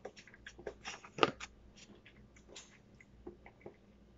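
A person chewing food with the mouth closed: a scatter of short, irregular wet clicks and small crunches, the loudest just over a second in, thinning out towards the end.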